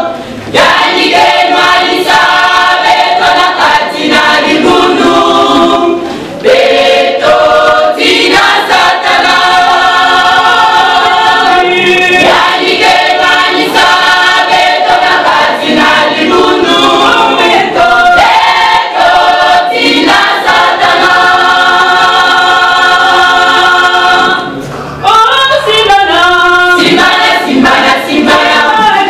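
Women's choir singing a cappella in harmony. The singing dips briefly between phrases about six seconds in and again near twenty-five seconds.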